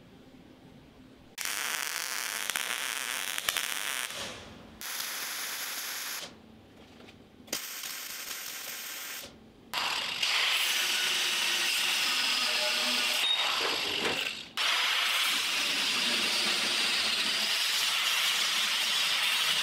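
Handheld angle grinder grinding steel tubing in several bursts of a few seconds each. The last long run fills the second half. The first burst winds down as the disc spins to a stop.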